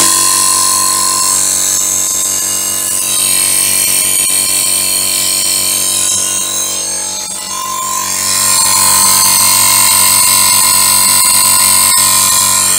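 Powercraft air compressor running steadily, its oil-lubricated pump building pressure in the tank just after starting up.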